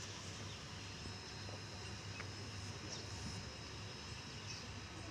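Outdoor ambient noise: a steady low hum and an even hiss with a thin steady high tone, and a few faint, brief high sounds scattered through it.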